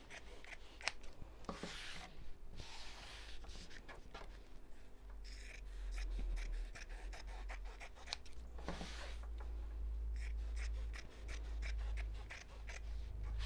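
Dressmaking scissors cutting fabric along the edge of a quilted foam mat: a run of quick blade snips and clicks with fabric rustling in between. A low rumble sits underneath from about a third of the way in.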